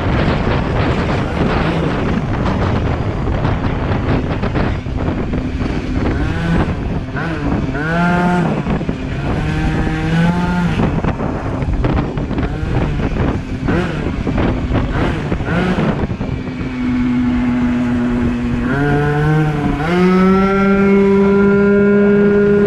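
Yamaha Aerox scooter's tuned Polini 70cc two-stroke single with a Yasuni C16 expansion exhaust, ridden on the throttle. The engine note sweeps up sharply several times and then holds a steady high pitch as the CVT takes up the revs; the longest pull is near the end. Wind rushes over the microphone throughout.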